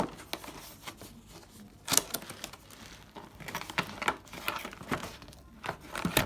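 Cardboard box and its packaging being worked open by hand: irregular crinkling and scraping with scattered sharp clicks, the loudest snaps near the start, about two seconds in, and near the end.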